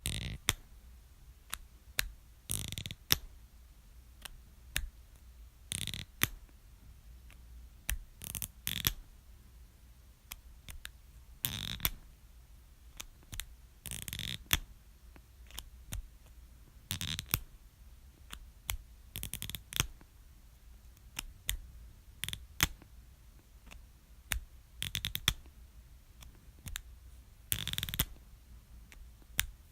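Felt-tip marker caps being pulled off and pushed back on over and over: short plastic clicks and brief scrapes of cap on barrel, a second or two apart.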